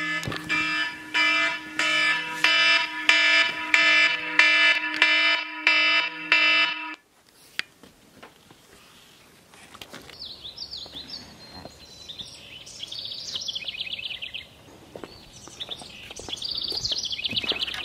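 A smartphone alarm ringing in a loud, repeating electronic pattern of beeping tones, cut off suddenly about seven seconds in. From about ten seconds on, birds chirp.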